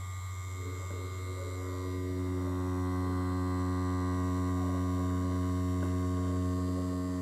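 Tattoo machine running while lining practice skin, a steady hum. It grows a little fuller and louder over the first two seconds as the needle works the line.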